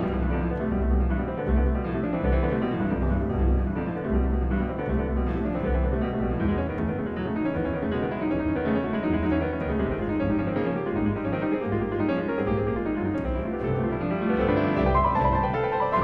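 Background instrumental music led by piano, a running line of notes over repeated low bass notes.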